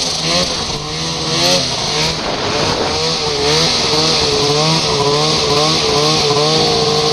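Snowmobile engine running under throttle through deep snow, its pitch rising and falling as the rider works the throttle, then holding steadier with a gentle waver from about three seconds in. A steady high hiss runs alongside it.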